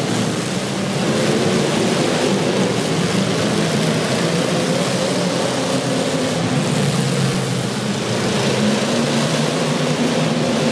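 Demolition derby cars' engines running loudly, several overlapping engine tones wavering up and down as they rev, over a constant haze of noise.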